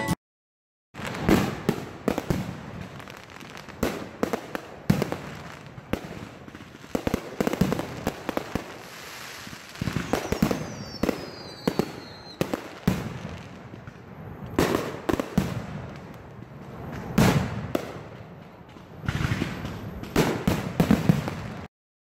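Aerial fireworks display going off: a long string of sharp bursts, with crackling in between and a falling whistle about halfway through.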